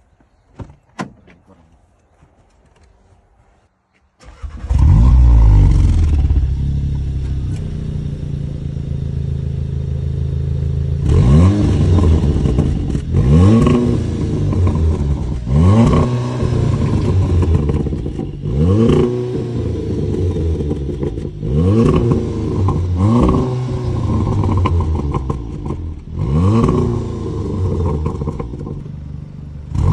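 Stock VW Golf R's turbocharged four-cylinder engine through its factory exhaust: a couple of faint clicks, then it starts about four seconds in with a loud flare and settles to idle. From about eleven seconds it is blipped repeatedly, about eight revs, each one rising and falling in pitch.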